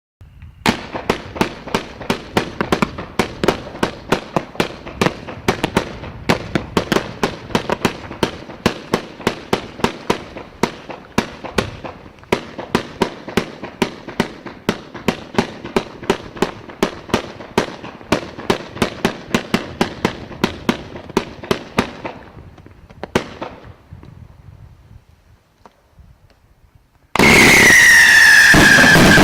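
"Tsar's Salute" consumer firework cake firing: a rapid string of sharp shots, about three a second, for some twenty seconds, then dying away. Near the end a sudden, much louder whistling starts, its pitch sliding slowly down.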